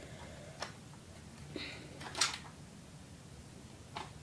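A few scattered clicks and knocks of a plastic toy robot being handled, the loudest about two seconds in.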